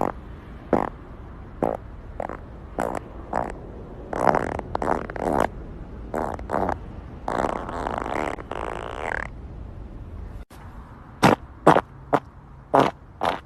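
A run of human farts: short pitched blasts, then a longer drawn-out one. After an abrupt cut come five quick short farts in a row.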